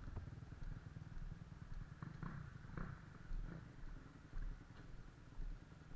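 Low, pulsing rumble of a dirt bike engine idling, with a series of soft footsteps and scuffs over it.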